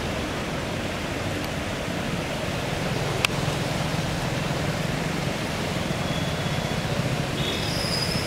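Steady noise of traffic driving through a flooded street: engine rumble and water swishing, with one sharp click about three seconds in.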